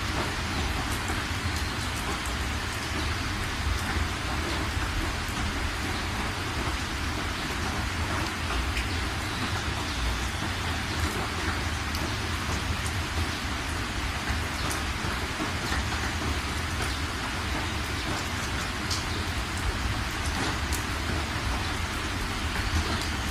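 Heavy rain falling on a car's windshield and body, heard from inside the moving car, steady throughout over a low rumble from the car.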